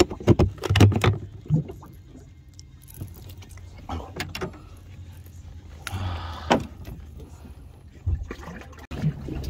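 Knocks and clatter of gear being handled on the deck of a small fibreglass fishing boat, a quick cluster in the first second and a half and scattered single knocks after, over a low steady hum.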